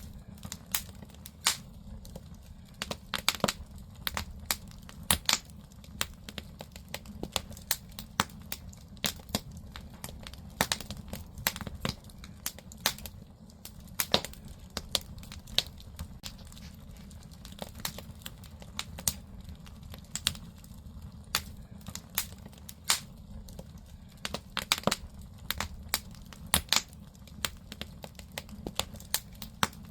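Firewood burning in a Korean agungi fire-hole: irregular sharp crackles and pops from the burning logs, several a second at times, over a steady low rumble of the fire.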